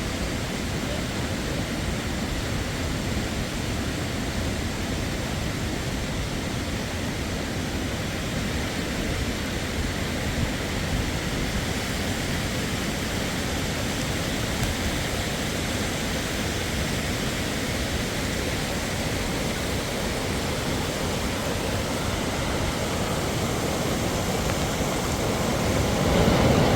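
Waterfall: a steady, even rush of falling water with no breaks, swelling a little near the end.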